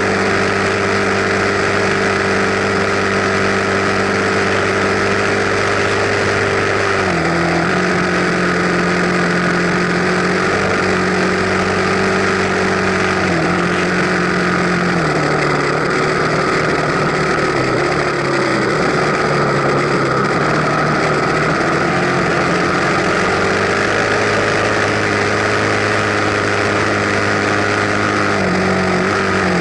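Enduro dirt bike engine running as the bike rides along, its note stepping down and back up several times with changes of throttle and gear.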